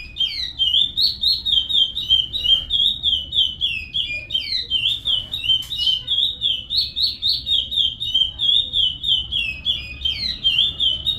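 Curió (chestnut-bellied seed-finch) singing a long, unbroken song of quick whistled notes, about four a second, each slurring up and down.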